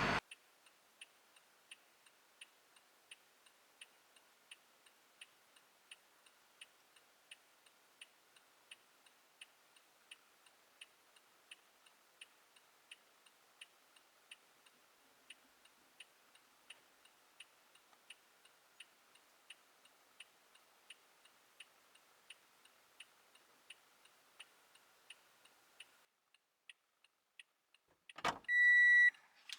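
Car turn-signal indicator ticking faintly and evenly, about three ticks every two seconds, until it stops a few seconds before the end. Near the end comes a short, loud high-pitched beep with a knock.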